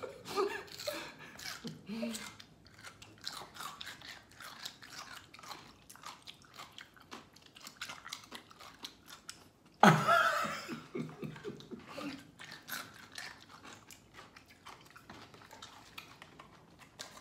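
Crunchy chewing of sweet-and-sour pickled radish cubes, close to the microphone, as a run of many small crisp crunches. About ten seconds in there is a short, louder burst of voice.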